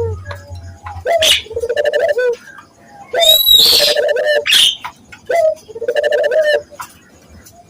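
Puter (Barbary) dove cooing in about three repeated low, rolling phrases, with shrill high chirps from other birds mixed in; it fades to quiet near the end.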